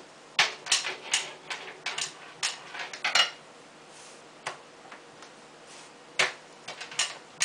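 Sharp taps and knocks of a rolling pin and hands on a wooden countertop while a thin sheet of semolina dough is patted and peeled off it: a quick run of about ten taps over the first three seconds, then a few single knocks.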